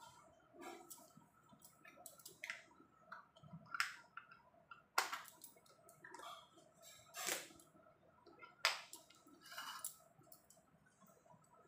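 Faint scattered clicks and short scraping sounds of small objects being handled, a few louder ones spread through, over a faint steady hum.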